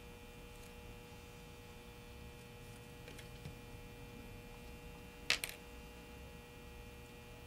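Steady faint electrical hum with a high whine, broken about five seconds in by two sharp clicks close together: a small hand tool laid down on a cutting mat.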